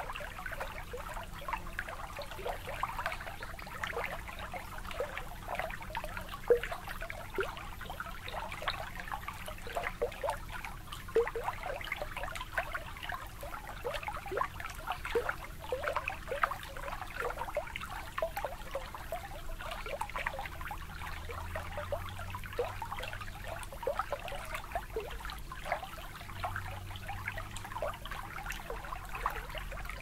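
Water gently lapping and trickling at a shoreline: a steady, irregular patter of small splashes and drips.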